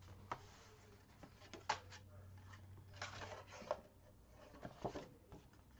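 Heavy black cardstock sheets being picked up and moved on a cutting mat: faint paper handling with a few light taps and a short rustle about three seconds in.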